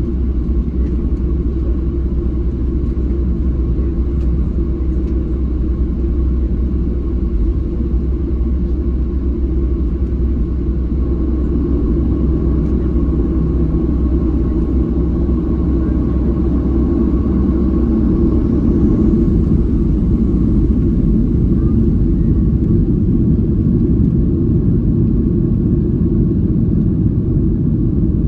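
Cabin noise of a Boeing 737-700 airliner: the CFM56-7B jet engines and airframe give a loud, steady rumble with a steady hum on top, growing slightly louder in the second half.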